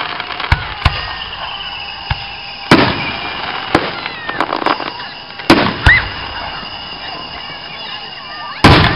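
Aerial fireworks shells launching and bursting: about eight sharp bangs and pops, irregularly spaced, the loudest a little under three seconds in and another just before the end.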